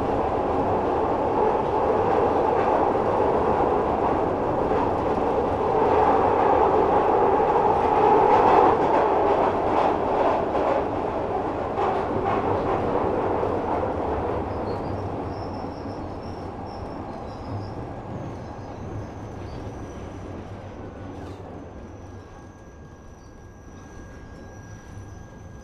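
Glasgow Subway train running on the rails with a steady rumble and rattle. The noise swells around a third of the way in, then fades away over the second half. A thin, high, steady squeal comes in as it fades.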